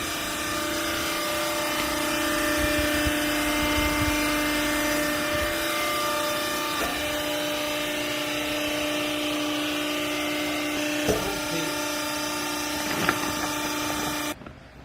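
Automatic swivel twin-chamber clothing baler running, a steady machine whine with a few knocks, which cuts off suddenly near the end.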